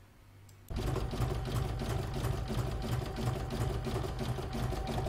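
Embroidery machine starts abruptly less than a second in and stitches steadily, its needle beating in a fast, even rhythm over a steady motor hum, sewing the zigzag stitch over the appliqué's raw edges.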